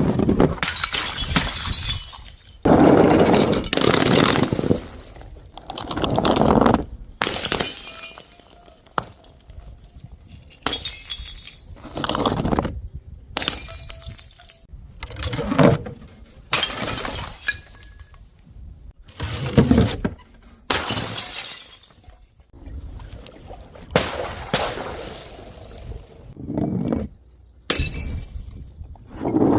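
Glass bottles smashing one after another: a dozen or more sudden breaks of shattering glass, each a second or two apart.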